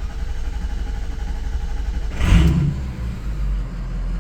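A Ford 6.0L Power Stroke V8 turbodiesel cranking on the starter for about two seconds, then firing with a loud surge and settling into running. The long crank before it catches comes from injection control pressure building slowly, which the mechanic takes for a high-pressure oil leak.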